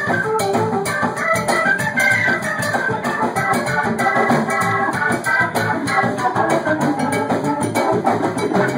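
Live band playing, with an electric organ out front, running a busy line of short notes over steady drums.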